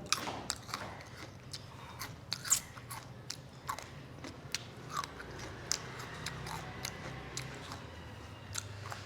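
A person biting and chewing fruit close to the microphone: irregular crunches and mouth clicks.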